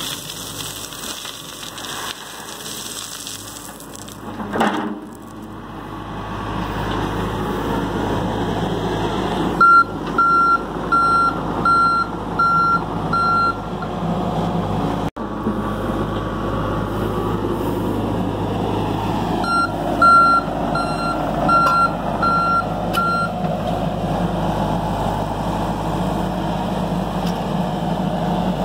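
John Deere 60G compact excavator working: at first soil rattles out of its bucket, then its diesel engine runs steadily under load. Twice its travel alarm beeps, six or seven evenly spaced beeps each time, as the machine tracks.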